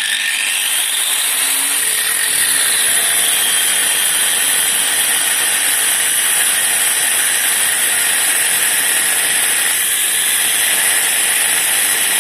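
Angle grinder cutting through steel with a cut-off disc, running steadily and loudly under load through a slow, careful cut.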